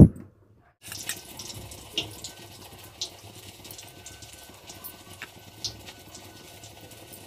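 A single loud low thump right at the start, then a faint steady hiss with a few soft clicks as a dry spice mix is pressed by hand into slit whole brinjals.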